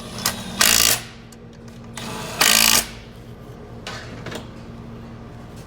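Handheld power tool running in two short bursts, driving in the transmission's pump housing bolts, followed by a few light clicks.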